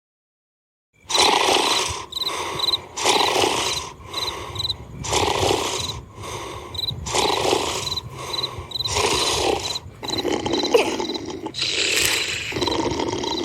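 Snoring, one long rough snore about every two seconds with shorter breaths between, starting about a second in, over chirping crickets.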